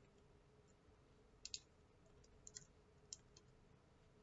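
A few faint clicks from a computer keyboard and mouse: a pair about a second and a half in, then a few more over the next second and a half, over a faint steady hum.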